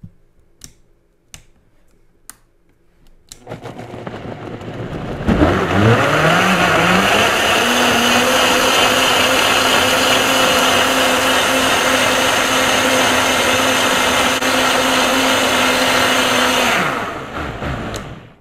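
High-powered countertop blender blending almond milk with soaked dates and cocoa. After a few light clicks, the motor starts about three seconds in and rises in pitch as it speeds up, runs steadily at full speed, then winds down near the end.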